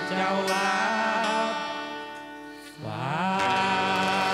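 Live acoustic band music: acoustic guitar and accordion backing two men singing a long held note. About three seconds in the sound dips, then a new note slides up and is held.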